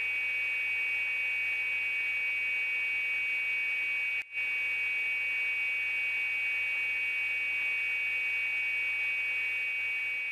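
Craftsman 10-inch contractor table saw running steadily on its 1.5 horsepower enclosed motor, with the blade lowered below the table: a steady high-pitched whine over a low hum. The sound drops out briefly about four seconds in.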